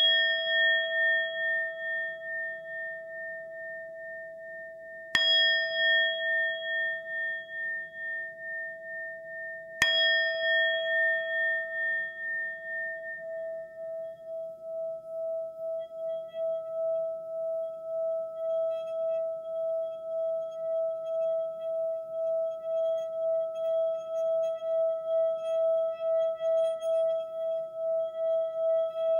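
Singing bowl struck three times, about five seconds apart, each strike ringing on in a low tone with higher overtones. From about halfway through, the tone keeps sounding without a new strike, pulsing steadily, with faint high shimmering overtones.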